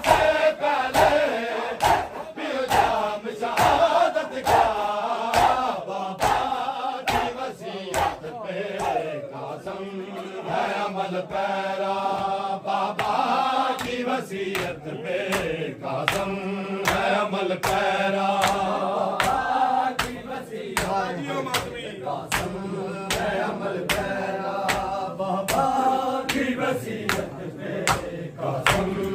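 Group of men chanting a Shia noha in unison over rhythmic chest-beating (matam), the hand slaps keeping a steady beat of about two a second.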